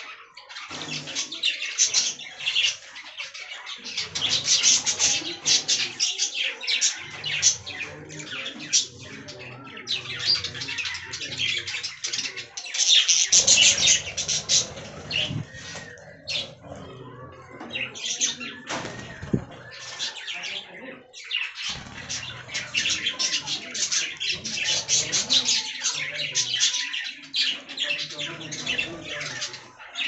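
A flock of budgerigars chirping and chattering continuously, many short high calls overlapping, with brief squawks.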